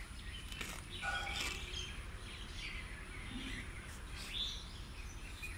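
Small birds chirping now and then, with short scattered rustles and snips from grass being cut by hand, over a steady low rumble.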